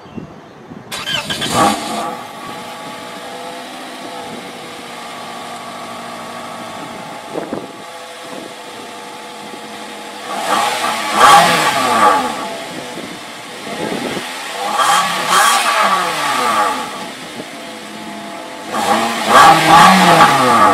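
Toyota Corolla LE's 1.8-liter four-cylinder engine heard at the exhaust tailpipe: it starts about a second in and settles into a steady idle. It is then revved three times, each rev rising and falling over about two seconds.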